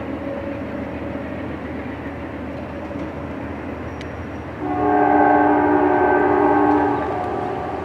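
Amtrak GE P42DC diesel locomotive and train running with a steady rumble, then the locomotive's air horn sounding one long chord about two-thirds of the way in, held for about two seconds before it fades.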